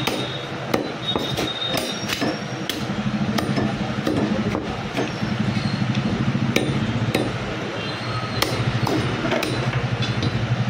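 Butcher's cleaver chopping goat meat and bone, repeated sharp chops at an uneven pace of a few a second, over a steady low hum.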